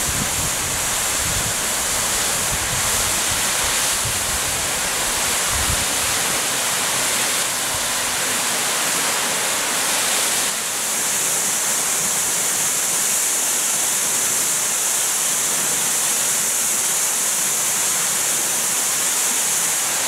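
Steady rush of a tall waterfall cascading down granite slabs, with wind buffeting the microphone in gusts during the first six seconds or so.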